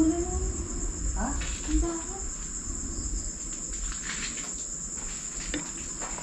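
Insects chirping in a steady, high-pitched trill.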